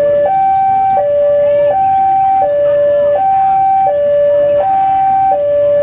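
Railway level-crossing warning alarm sounding: an electronic two-tone signal alternating evenly between a high and a low tone, each held about three-quarters of a second, warning that a train is approaching.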